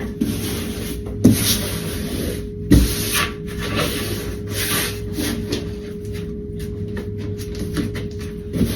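Wallpaper being rubbed and smoothed against the wall by hand, in irregular scraping, rustling strokes, with two sharp knocks, the first about a second in. A steady hum runs underneath.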